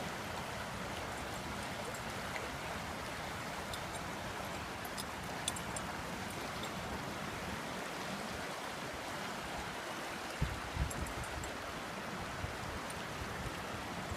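Runoff water rushing steadily down a drainage channel running high after heavy rain and snowmelt. A few low thumps come about ten seconds in.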